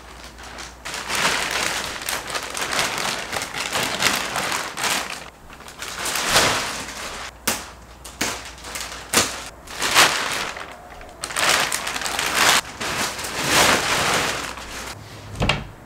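Thick clear plastic wrap crinkling and crackling as it is cut open and pulled off a foam mattress, in repeated loud surges with sharp crackles.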